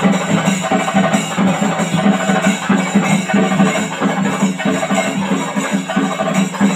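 Live drums and cymbals playing a fast, dense rhythm without pause, the cymbals jingling over a steady low drone.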